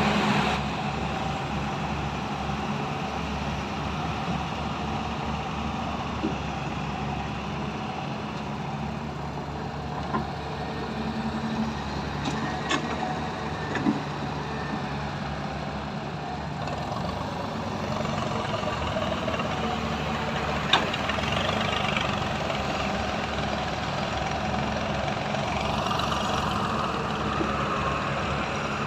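Diesel engine of a Hyundai excavator running steadily, with a few sharp knocks scattered through.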